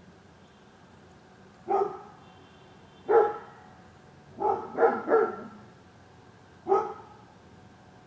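A dog barking: six sharp single barks spread over several seconds, three of them in quick succession about halfway through.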